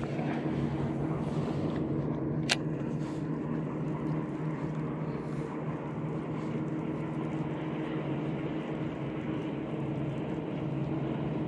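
A steady engine drone with an even hum, and a single sharp click about two and a half seconds in.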